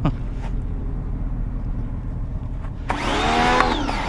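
Karcher K1 pressure washer's electric pump motor starting up about three seconds in, its whine rising quickly to a steady pitch, then dipping and picking up again just at the end. Before it starts, only a low steady hum is heard.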